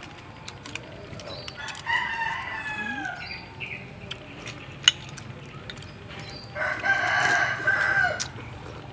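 Rooster crowing twice: a first crow about two seconds in and a louder one near the end, each a drawn-out call, the second dropping in pitch at its close. A single sharp click comes midway.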